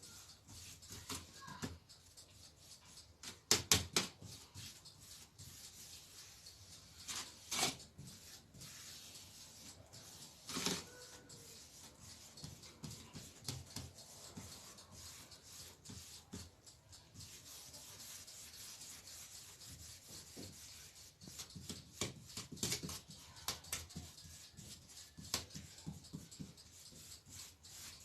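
Scattered light knocks and rubbing from hands and kitchen utensils handling a tart mould and its pressed biscuit-crumb crust, with a few louder taps spread through.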